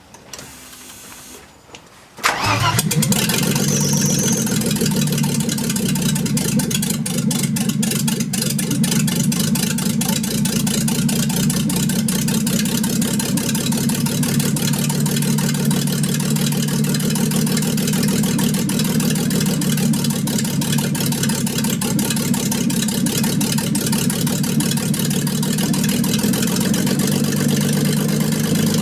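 Mercedes W124 E260's 2.6-litre straight-six catches and starts about two seconds in, then runs steadily and noisily with a busy, rapid ticking clatter over it. This is the first start of the freshly rebuilt engine.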